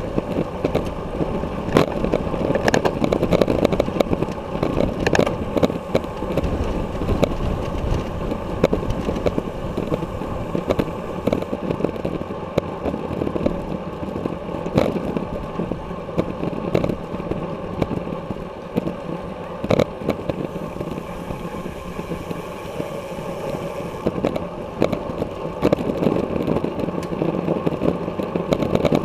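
Steady wind and road noise from a camera mounted on a road racing bicycle riding at race speed in a pack, with scattered sharp clicks and knocks.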